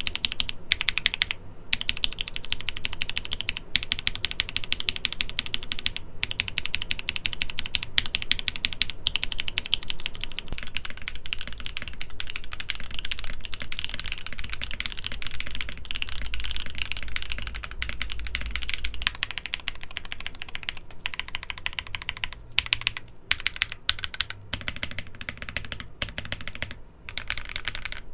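Fast, continuous typing on a mechanical keyboard: dense clacky keystrokes with no letup, breaking into a few short pauses near the end.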